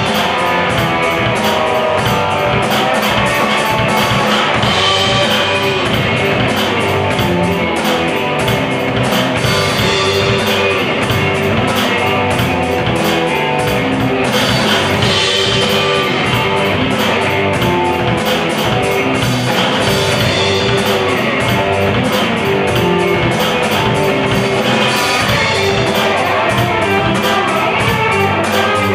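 Live rock band playing an instrumental passage: electric guitar, bass guitar and drum kit, with a steady beat of cymbal strokes and no vocals.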